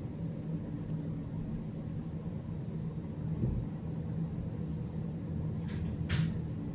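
A steady low hum, with a dull thump about three and a half seconds in and two short hissing bursts close together near the end.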